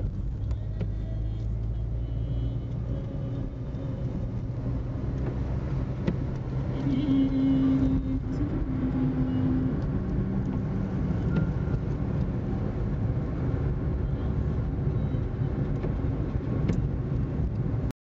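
A car driving, heard from inside the cabin: steady engine and road rumble, with a brief humming engine note around the middle, cutting off abruptly near the end.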